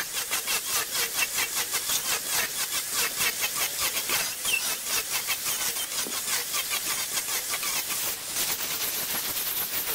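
A cutting tool scraping wood on a turning lathe, in rhythmic pulses about three or four a second.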